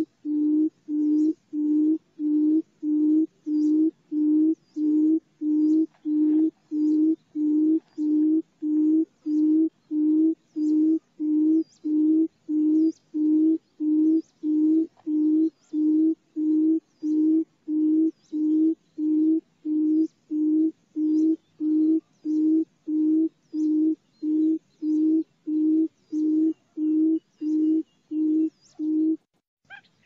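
Barred buttonquail's low booming call: a long, even series of hoots, about one and a half a second, that stops about a second before the end.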